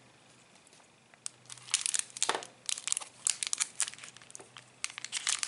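Plastic packaging crinkling in short, irregular bursts as it is handled, starting about a second in: the wrapping of a replacement phone battery being taken out.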